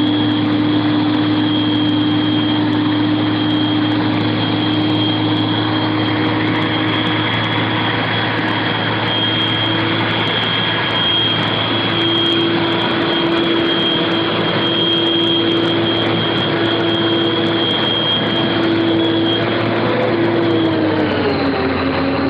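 Truck-mounted crane's engine running steadily while hoisting a load, with a steady low tone and a high whine over it; the pitch drops near the end.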